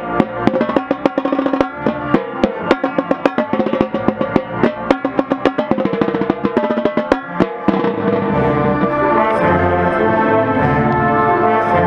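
Marching band playing: the drums and pitched percussion hit quick, sharp strokes, then about eight seconds in the brass comes in with held chords over low notes.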